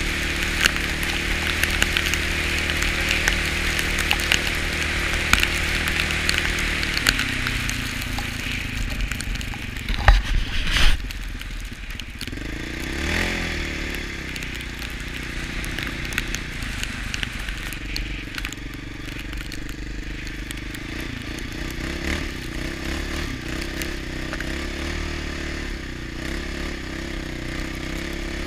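Yamaha Raptor 700R quad's single-cylinder four-stroke engine running under way, over a steady hiss of tyres on snow. The engine note drops about seven seconds in, a couple of sharp knocks come a few seconds later, then a brief rise and fall in revs before it settles back to a steady run.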